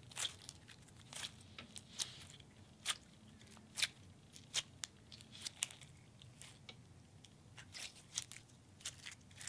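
Glitter putty being squeezed and kneaded by hand, giving off soft, irregular sticky clicks and pops, about one or two a second.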